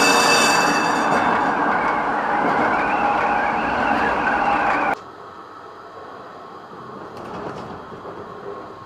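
Tram running along the rails, heard from the driver's cab: loud rolling noise with a whine that rises and falls, and a brief high-pitched ringing at the start. About five seconds in it cuts to much quieter running.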